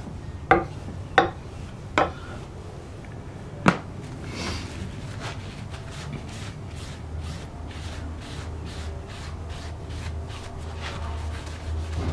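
Four sharp knocks in the first few seconds, then a cloth rag rubbing over a wet hatchet blade in quick, even strokes, about three a second. The rag is mopping water and stone residue off the steel after honing on a finishing stone.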